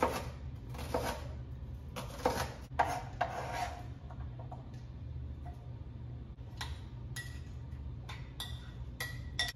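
A chef's knife chopping onion on a cutting board, several knocks in the first few seconds. Near the end come lighter clinks with a brief ring as the chopped onion is pushed into a glass bowl. A low steady hum sits underneath.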